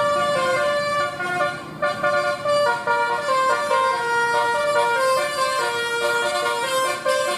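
Basuri telolet horn, the multi-trumpet musical horn of a tour bus, playing a tune of held notes that step up and down in pitch.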